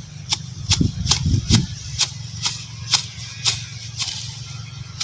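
Dry grass and weeds rustling and crunching in sharp strokes about twice a second, with a few low thumps about a second in.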